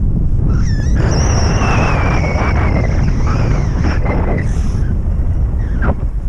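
Airflow buffeting the camera microphone of a paraglider in flight, a loud steady low rushing. From about a second in, a thin high tone runs and slowly falls in pitch, and a short gliding tone comes near the end.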